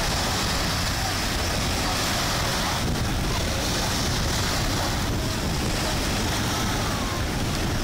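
Wind buffeting the phone's microphone with a steady low rumble, over the even wash of small waves breaking on a shingle beach.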